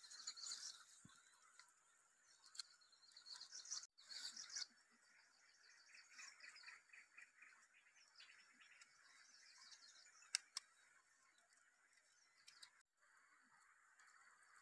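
Faint birds chirping over a quiet, steady background hiss, with one sharp click about ten seconds in.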